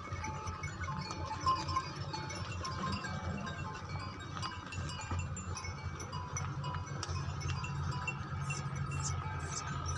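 Small bells on a herd of walking water buffalo jingling irregularly, a scatter of short high ringing notes, over a steady low rumble.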